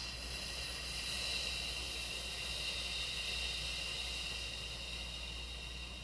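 A person exhaling in one long, steady hiss on an F consonant, air forced between lower lip and upper teeth. It starts right at the outset, is strongest about a second in, then slowly eases off.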